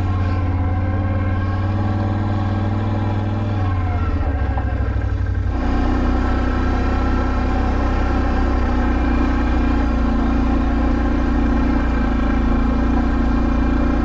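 Can-Am Outlander 570 ATV's V-twin engine running as the quad rides along a dirt trail. The engine note sags briefly around four seconds in, then changes about five and a half seconds in and holds steady, a little louder.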